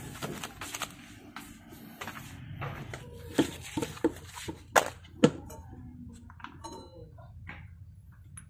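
About half a dozen sharp clicks and knocks within a couple of seconds from a tin of white grease and small wheel parts being handled and set down on concrete.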